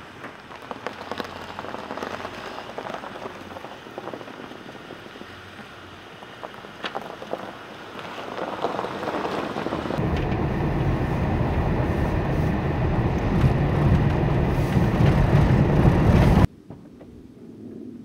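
Road noise heard from inside a vehicle driving on a snow-covered road: a low rumble of tyres and wind that builds up and then cuts off abruptly near the end, after a softer stretch scattered with crackles and clicks.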